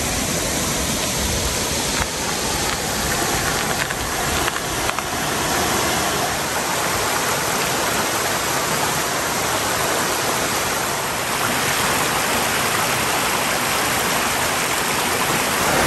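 A small creek at low flow, water running and splashing down over rocks in little cascades; a steady sound of running water throughout.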